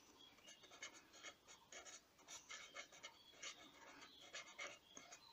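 Felt-tip marker writing on paper: faint, quick, irregular scratching strokes.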